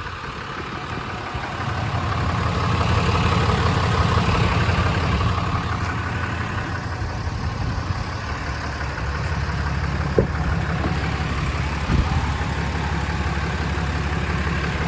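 6.7-litre Cummins inline-six turbo-diesel idling steadily, getting louder over the first couple of seconds. Two short knocks come about ten and twelve seconds in.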